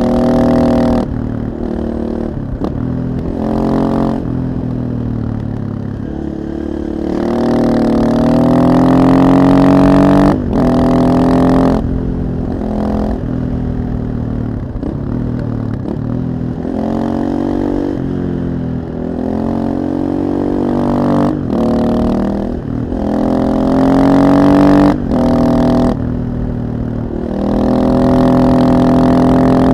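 KTM 640 supermoto's single-cylinder four-stroke engine, with an Akrapovic exhaust, pulling hard through the gears. The revs climb, then drop sharply at several quick upshifts, and fall away as the bike slows between accelerations.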